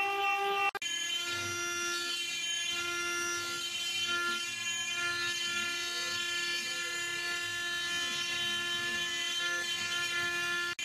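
CNC stone carving machine's spindle running steadily as its bit carves stone under a water coolant spray: a steady whine of several high tones. It drops out for an instant about a second in, then carries on at a different pitch.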